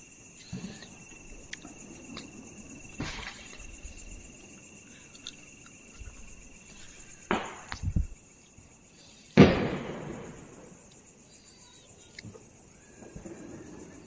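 Firecrackers bursting: several sharp bangs at irregular intervals, the loudest about nine and a half seconds in, each fading away after the crack. A steady high insect chirring runs underneath.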